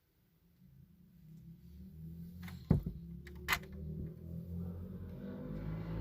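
Audi RS6 approaching, its engine rumble growing steadily louder from faint, with two sharp clicks near the middle.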